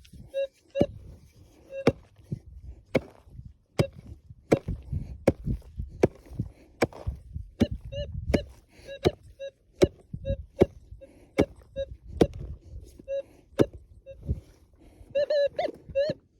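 A hand digging tool striking hard ground again and again, a sharp chop roughly every half to three-quarters of a second, digging down to a metal detector target. Short pitched blips sound between some of the strikes.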